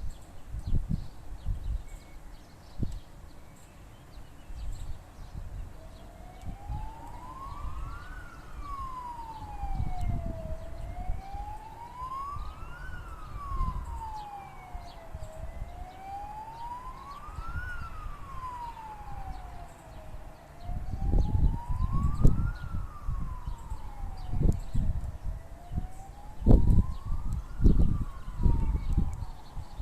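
Emergency vehicle siren in a slow wail, rising and falling about once every five seconds, coming in a few seconds in. Underneath is a low rumble with thumps that grows louder in the second half.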